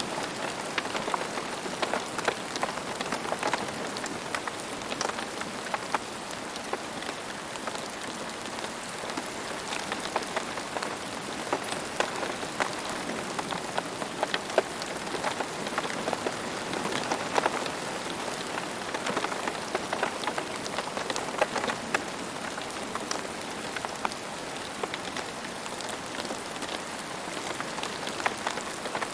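Steady rain falling, with many distinct raindrop taps and splats over a constant patter.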